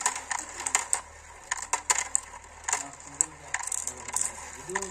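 Marbles rolling down a marble run, clicking and clacking irregularly against the track and each other, several knocks a second.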